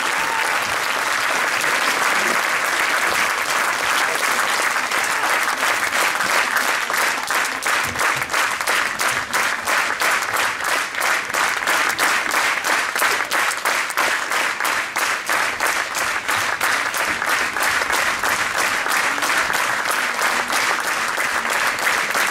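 Theatre audience applauding the cast's curtain call; about six seconds in, the clapping falls into a steady rhythm in unison.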